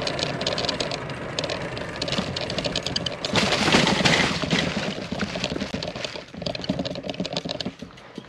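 Bicycle on the move, heard on a low-mounted camera: tyres over rough pavement with dense rattling and clicking, and wind on the microphone. It is loudest a little over three seconds in.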